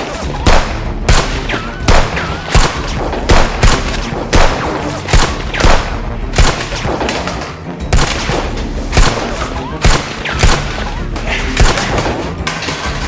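Repeated loud bangs and thuds, about one or two a second and unevenly spaced, over background music.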